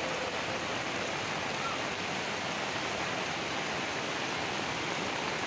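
Steady rushing noise of muddy floodwater pouring down a street in heavy rain.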